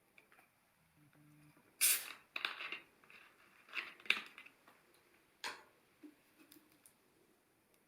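Plastic soda bottle being handled and opened: several short bursts of hiss and crackle, the loudest about two seconds in, with a few light clicks.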